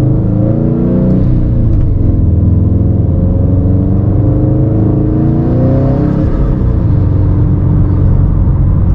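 Subaru STI's turbocharged 2.5-litre flat-four (EJ257) running under light load while driving, heard from inside the cabin over road rumble. The engine note drifts gently up and down.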